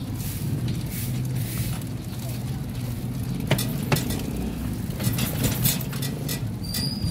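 Ride noise inside a moving passenger sidecar: a steady low vehicle hum with light rattling and two sharp knocks about three and a half and four seconds in.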